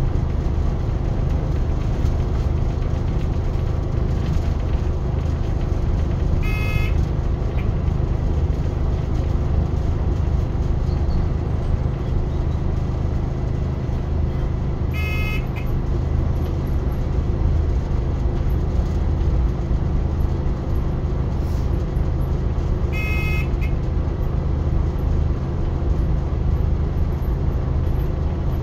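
Cab interior of a British Rail Class 139 Parry People Mover railcar on the move: a steady low drone from the engine and running gear, with the wheels on the rails. A short electronic beep sounds three times, about every eight seconds.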